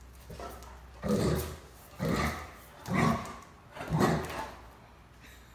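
Great Dane barking four deep barks about a second apart, a play bark inviting the others to play.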